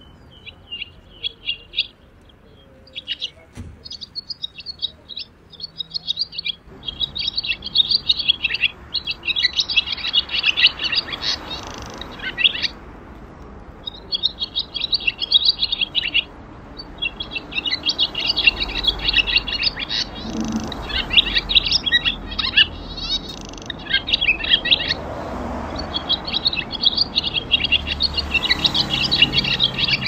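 A dense chorus of small songbirds chirping and twittering rapidly and high-pitched, breaking off briefly twice in the first half, over faint street noise.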